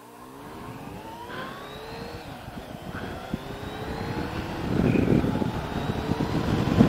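Kawasaki Concours 14's inline-four engine with a Delkevic slip-on exhaust accelerating, its pitch climbing, dropping back about two seconds in as it shifts up, then climbing again. Wind rush grows louder over the second half.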